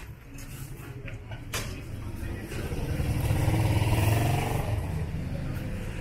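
A motor vehicle engine passing close by, growing louder to a peak about four seconds in and then fading, with a couple of short knocks before it.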